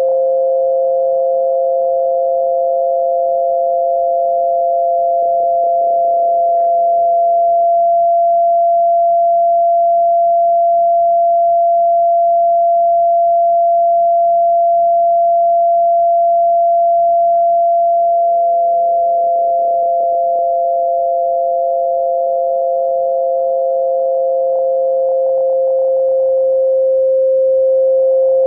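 Two steady sine-wave tones sounding together as a tinnitus-masking sound. The lower tone fades out about seven seconds in and returns about ten seconds later, while the higher tone holds throughout.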